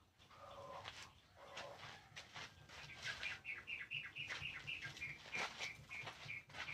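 A bird calling: a few lower notes early on, then a quick run of short high chirps, about three a second, through the second half. Scattered clicks and knocks sound underneath.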